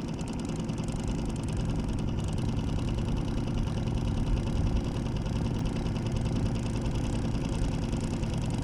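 Small 3-horsepower four-stroke outboard motor running steadily at trolling speed.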